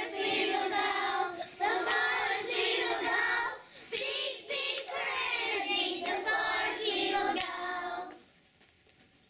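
Young children singing a song together in phrases of held notes, stopping about eight seconds in.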